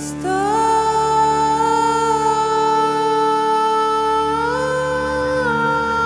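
Slow, calm instrumental background music. One long held lead note swoops up into pitch just after the start, steps up and back down briefly past the four-second mark, and sits over a steady low drone.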